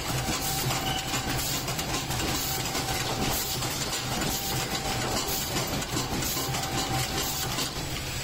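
Mechanical paper plate forming machine running at high speed, a steady fast clatter of its forming and feeding mechanism over a constant low hum.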